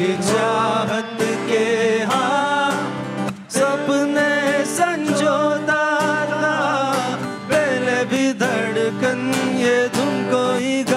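Live acoustic song: a man sings wavering melodic phrases, with brief breaks between them, over a strummed acoustic guitar.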